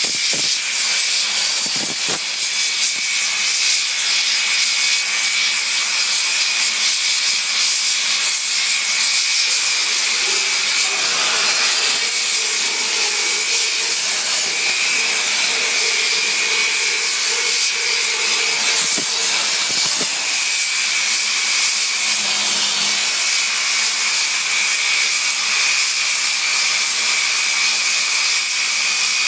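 Torch of a CNC metal-cutting table cutting plate: a loud, steady hiss with a thin high whistle running through it, and a lower tone joining in for several seconds midway.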